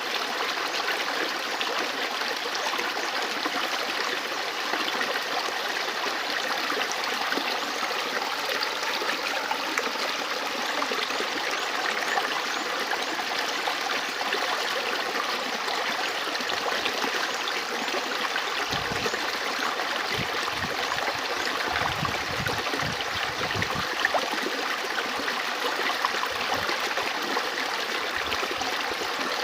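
River water flowing and rushing over rocks in a steady, unbroken stream.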